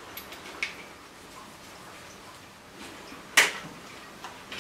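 Small handling clicks as a throttle cable's outer end is worked into a motorcycle's plastic throttle housing, with a few light ticks early and one sharper, louder click about three and a half seconds in.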